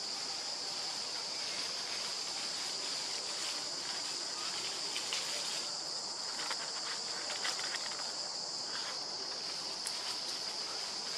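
Steady high-pitched drone of insects calling in chorus over a constant background hiss, with short light rustles and clicks of dry leaves from monkeys shifting about, more of them in the second half.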